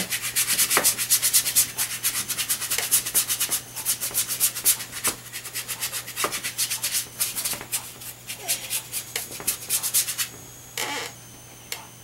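A paintbrush rubbing on paper in quick, short strokes, several a second, laying in shadow on a painted roof; the strokes stop about ten seconds in. A faint steady hum runs underneath.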